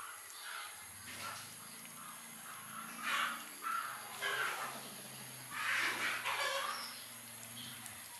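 Kittens eating shredded chicken from a steel tray: wet chewing and smacking in short raspy bursts, the loudest about three seconds and six seconds in, over a faint low hum.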